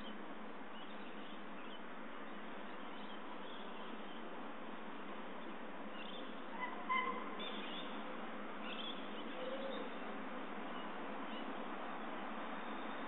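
Steady background hiss with a few short, scattered bird calls, the loudest about seven seconds in.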